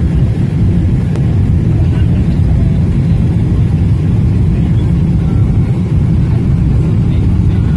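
Cabin noise of a Boeing 777-300ER on final approach with the flaps extended: a steady low rumble from the GE90 engines and the airflow over the airframe, heard from a window seat.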